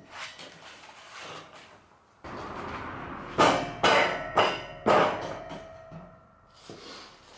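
Four sharp knocks on steel, roughly half a second apart, like hammer blows on the steel box-section frame. A short metallic ring follows the last one. They come just after about a second of steady hiss.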